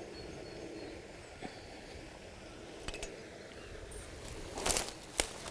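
Footsteps on a dirt woodland path littered with twigs and dead leaves: a few faint crunches, then a louder crackling step near the end.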